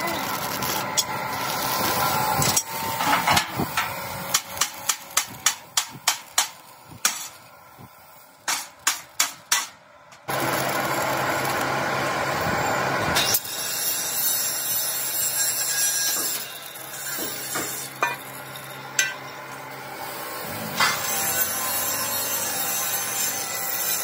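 Stick (arc) welding on sheet steel, a steady crackling hiss, broken in the middle by a run of about fifteen sharp hammer strikes on steel before the welding hiss resumes.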